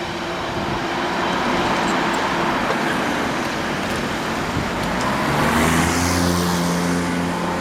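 Road traffic crossing a railway level crossing just after a train has gone through. Cars drive over the crossing with tyre noise, and a vehicle's engine grows louder about five seconds in as it passes close.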